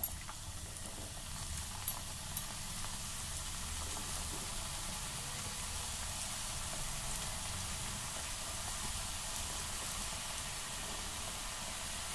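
Shankarpali dough pieces freshly dropped into hot oil in a kadai, deep-frying with a steady sizzle that builds over the first couple of seconds. A sharp tick as they go in, and two small clicks about two seconds in.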